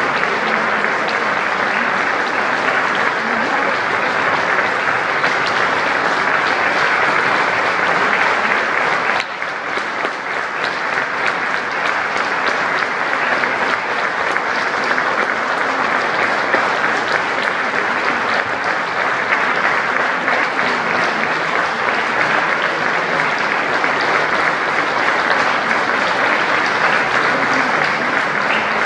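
Large audience applauding, a steady dense clapping that briefly dips about nine seconds in.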